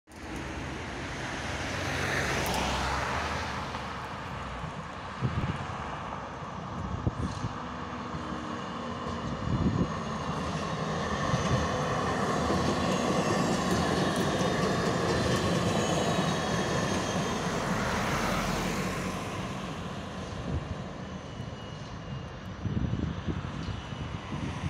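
Siemens Combino D2-class tram passing close by: a rising then fading run of wheels on rail with a faint high steady whine, loudest midway. Other road traffic swells past near the start and again about three-quarters of the way in.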